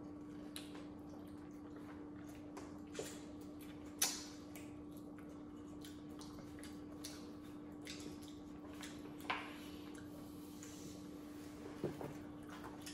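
Quiet eating sounds: chewing, with small wet smacks and clicks and a few sharper clicks, the loudest about four seconds in, over a steady low hum.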